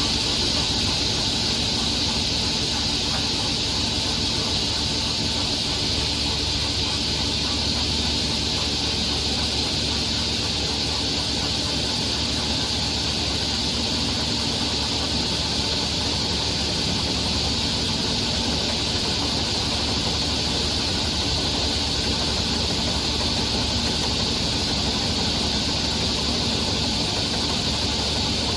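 SCM M3 S crawler-feed multi-rip saw with a 25 kW main motor running steadily: an even high hiss over a low hum, with no break or change.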